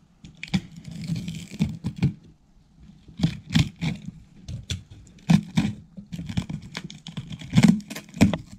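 Parcel being unpacked by hand: packaging tearing, scraping and crinkling, with irregular knocks and clicks, the loudest about five and seven and a half seconds in.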